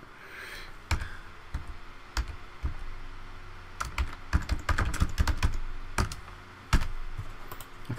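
Computer keyboard being typed on: irregular clicks and taps, some sharper key strikes standing out, over a faint steady hum from a computer fan.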